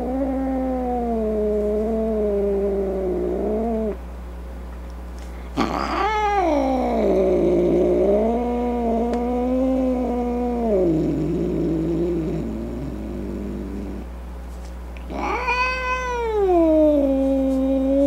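Cat yowling in long, wavering, drawn-out calls. One falls away about four seconds in. A second starts sharply around six seconds and sinks into a low, rough grumble. A third rises sharply near the end and is held. A steady low hum lies underneath.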